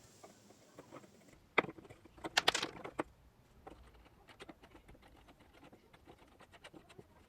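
A few sharp knocks and clatters of wood or tools being handled, loudest a little after two seconds in, followed by scattered faint ticks.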